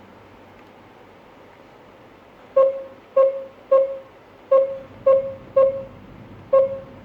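Short electronic beeps from a GSM alarm system's control panel, one per key press: seven beeps at an uneven pace, beginning a few seconds in. Each is the same mid-pitched tone and dies away quickly.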